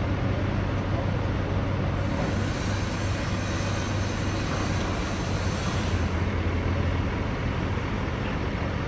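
Heavy machinery's diesel engines running with a steady low drone, and a higher hiss added for a few seconds in the middle.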